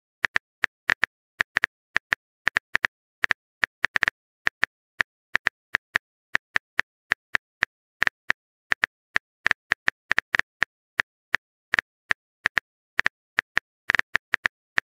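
Phone keyboard typing sound effect: a quick, uneven run of short, identical clicks, about three to four a second, one for each key tap as a message is typed.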